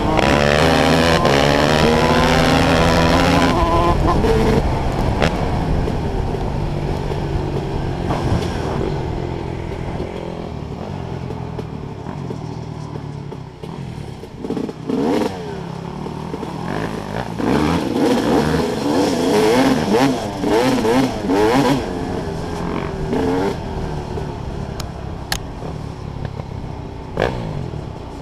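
Off-road motorcycle engine, heard from the rider's helmet, revving up through the gears in the first few seconds, then rising and falling with the throttle. Rattles and knocks come in as the bike rides over rough ground.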